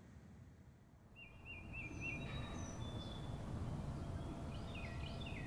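Outdoor ambience fading in about a second in: a low steady background hum with small birds calling over it, first a quick run of repeated chirps, then a few higher whistles, and falling chirp phrases near the end.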